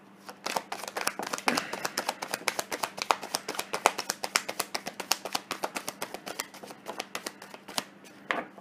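Tarot deck being shuffled by hand: a quick, steady run of card clicks and slaps, several a second, stopping shortly before the end.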